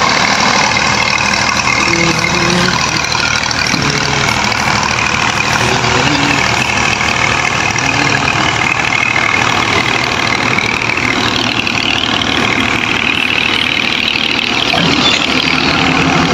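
Diesel locomotive engine running steadily at close range.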